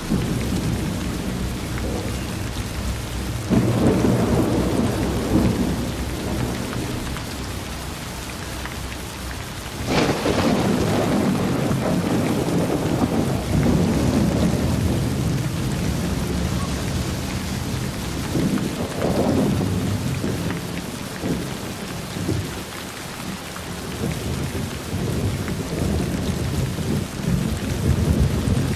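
Thunderstorm: steady heavy rain with rolling thunder, a sharp crack about ten seconds in followed by a long low rumble, and further rumbles swelling and fading throughout.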